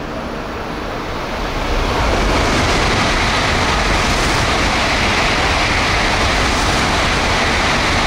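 Tokaido Shinkansen train running through the station, a loud steady rush of wheel and air noise that builds about two seconds in and holds at full strength to the end.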